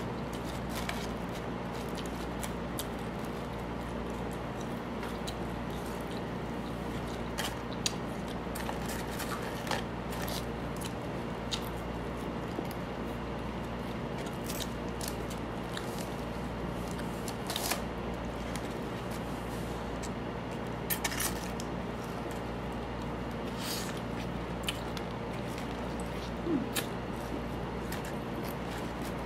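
Close-up eating sounds: chewing fries and fried chicken, with scattered short crunches and clicks from handling the food and its paper packaging. A steady low hum runs underneath.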